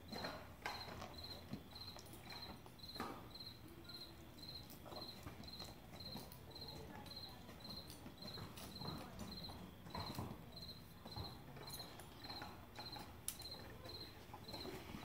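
A cricket chirping steadily, short high chirps evenly repeated about twice a second, under scattered soft knocks and rustles of horse tack being handled.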